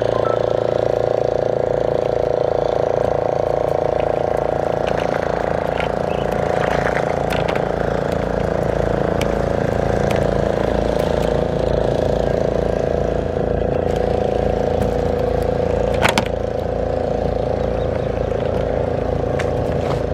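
Boat engine running steadily with an even low pulse, with scattered light clicks and one sharper knock about sixteen seconds in.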